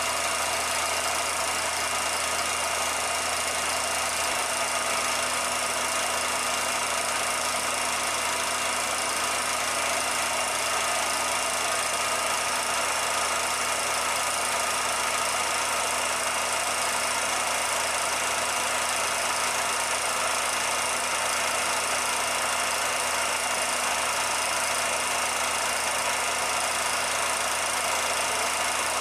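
Steady, unchanging machine hum and hiss with a few constant tones. It does not come from the filmed scene, whose film carries no sound.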